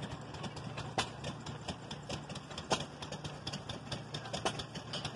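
Antique engine idling with a steady low hum, with sharp clicks scattered irregularly through it.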